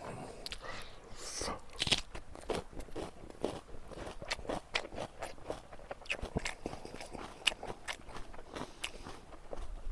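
Close-up chewing of crisp kimchi, a fast, irregular run of wet crunches and bites with a sharp louder crunch about two seconds in.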